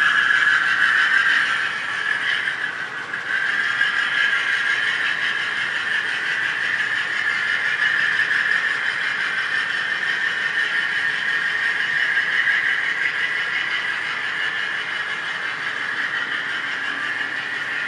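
An HO scale model freight train rolling past: the cars' metal wheels on the track make a steady high-pitched rolling noise, slightly louder in the first couple of seconds.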